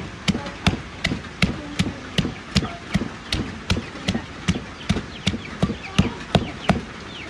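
Knife chopping on a board in a steady rhythm, nearly three sharp strokes a second.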